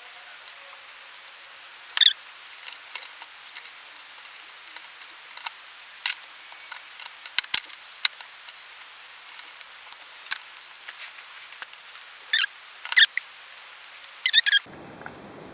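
Small scattered clicks and scratches of a hex key turning out screws and fingers handling the plastic motor cover of an electric RC car, with a louder click about two seconds in and a cluster of sharper clicks near the end.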